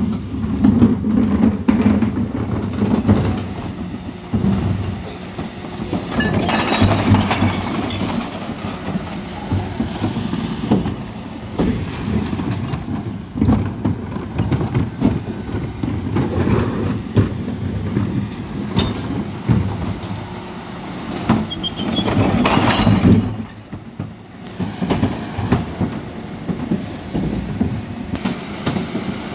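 Mercedes Econic refuse lorry with an Olympus body running at the kerb while its rear bin lift tips blue recycling wheelie bins into the hopper: a steady mechanical rumble with rattling and clattering of the bins and recyclables. It gets louder in bursts about six seconds in and again about twenty-two seconds in.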